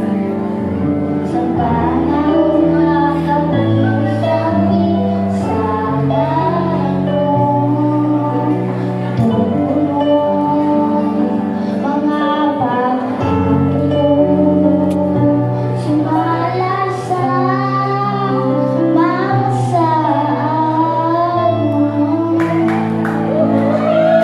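A girl singing into a microphone over backing music, her melody wavering above steady held bass notes that change every second or two.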